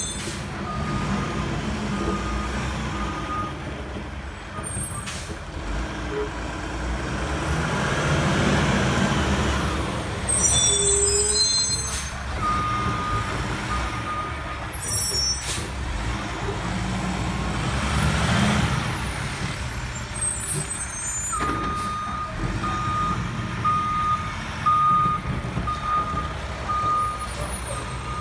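Diesel garbage truck (an automated side loader) running as it manoeuvres, its engine revving up twice. Its reversing alarm beeps in three spells, and short sharp hisses of air brakes are heard a few times.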